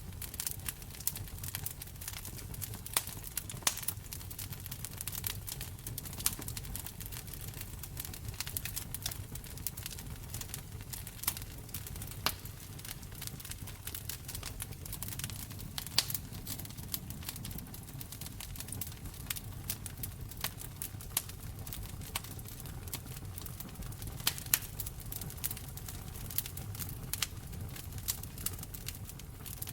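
Wood fire burning in a fireplace: a steady low rumble of the flames with frequent irregular sharp crackles and pops.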